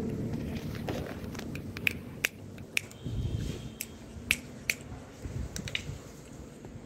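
American Bully puppies lapping milk from a steel bowl: a run of irregular sharp, wet clicks from tongues and mouths working at the milk and bowl.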